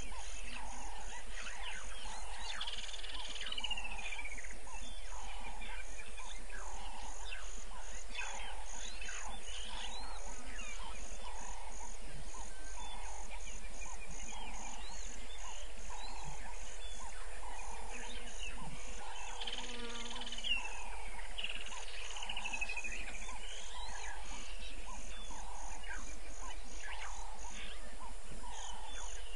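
Dusk bush chorus of insects and frogs. A high chirp repeats evenly about three times a second over a lower, slower pulsing call, and a couple of descending bird calls come a few seconds in and again about two-thirds of the way through.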